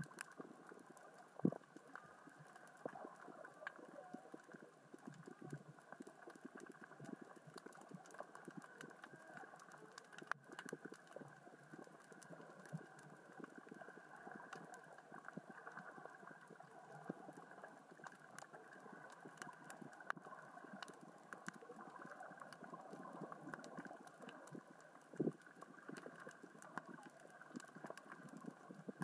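Faint underwater crackle of many small clicks and knocks, the sound of small rocks rolling across the sea floor as the current and tide move them. A few louder knocks stand out, one about a second and a half in and another near the end.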